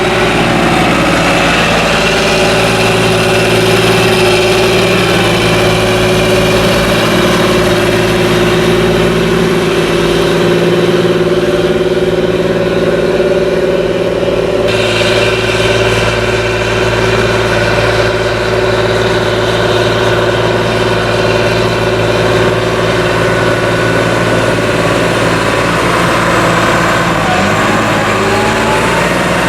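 Large diesel farm machinery running steadily at a constant engine speed. The sound changes abruptly about halfway through.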